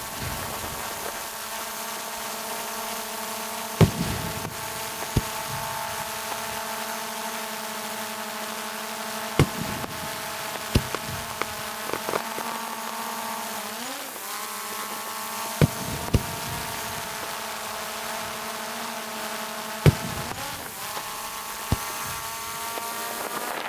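Quadcopter drone's propellers whining steadily, the pitch rising twice as the throttle changes, while fireworks burst in sharp bangs every few seconds, about ten in all.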